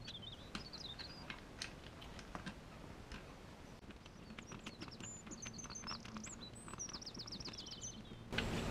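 Faint small clicks and ticks of a screwdriver driving a step screw through a shock absorber mount into a plastic RC car chassis, over a low steady hum. Birds chirp in the background, with a quick trill of repeated falling notes late on, and the background hiss gets louder near the end.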